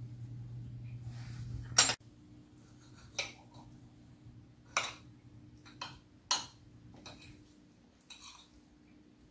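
Knives and forks clinking against a plate as a dessert is cut into: about six separate short clinks spread over several seconds. A single sharp knock just before them, about two seconds in, is the loudest sound.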